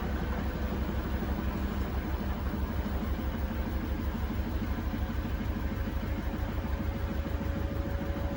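Beko WTK104121A washing machine on an intermediate spin with an unbalanced load, the drum giving a fast, regular low pulsing. From about three seconds in, the motor whine rises slowly in pitch as the drum speeds up.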